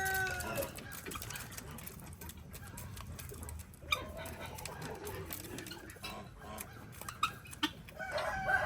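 A rooster crowing: a long, held crow trails off about half a second in, and another begins near the end. In between there are only faint light clicks and scratches.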